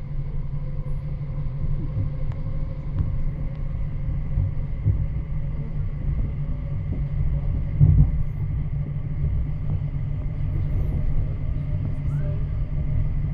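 Copenhagen S-train running at speed, heard from inside the carriage: a steady low rumble of wheels on the rails with a faint steady whine, and a single louder knock about two-thirds of the way through.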